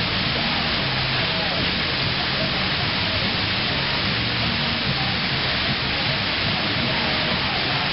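Steady loud rushing noise from the indoor brushboard ride's machinery, with faint voices underneath.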